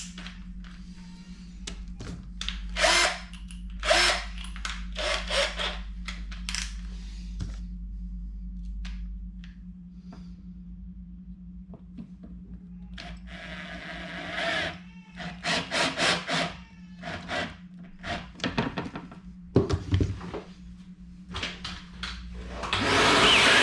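Cordless drill/driver working into a shelf board in many short bursts, starting and stopping repeatedly, with a quieter pause in the middle. Near the end a vacuum cleaner switches on with a steady rush.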